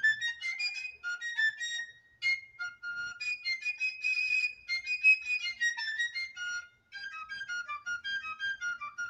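Background music: a high, quick melody of short notes on a single wind instrument, breaking off briefly twice.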